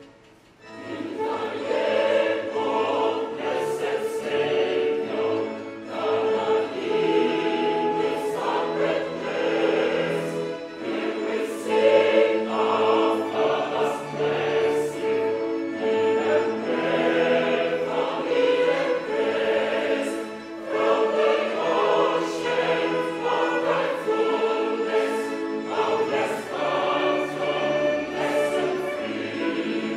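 Church choir singing a hymn in parts, accompanied by violins and electronic keyboards. The choir comes in about a second in, after a brief pause.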